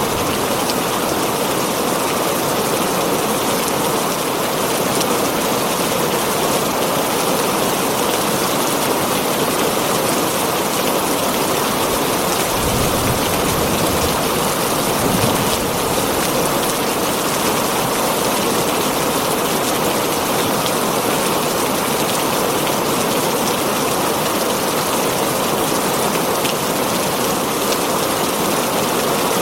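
Heavy rain drumming steadily on a tin roof, with a brief low rumble about halfway through.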